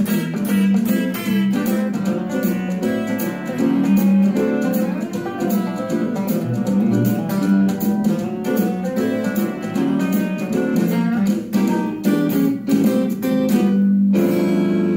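Western swing instrumental: a Telecaster electric guitar picks a lead line over a band with a steady beat. About fourteen seconds in, the beat stops and the song closes on a held final chord.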